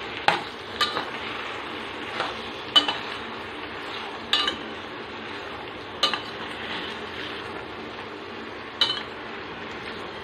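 A metal spoon stirring pumpkin, capsicum and soaked chana dal frying in a pan: a steady sizzle with a sharp clink or scrape of the spoon against the pan every second or two.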